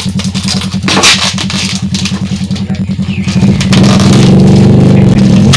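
An engine running with a steady rapid low pulse, growing louder about three and a half seconds in, with brief crackles of plastic wrapping being handled.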